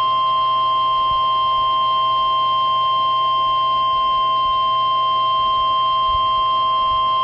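NOAA Weather Radio 1050 Hz warning alarm tone: one loud, steady, unbroken tone, the signal that an emergency warning broadcast is about to be read.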